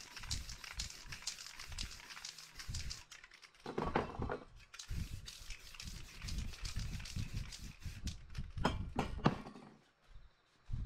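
Aerosol spray-paint can in use: a quick run of rattling clicks, dull knocks from handling, and louder spray bursts about four seconds in and again near nine seconds.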